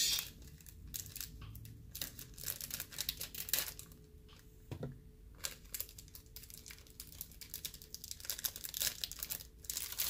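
Crinkling and tearing of a snack chip's packaging being opened by hand, a run of small irregular crackles.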